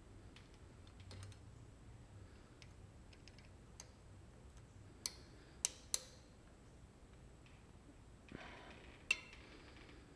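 Faint metallic clicks and ticks of a 5 mm Allen key working the disc brake caliper's mounting bolts as they are loosened. There are a few sharp ticks around the middle, and a short rustle of handling with another click near the end.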